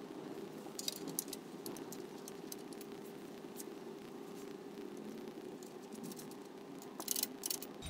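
Small metal parts clicking and rattling as a gear and its bolt are fitted to a cylinder mower's side plate: a few light clicks about a second in and a louder cluster of clicks near the end.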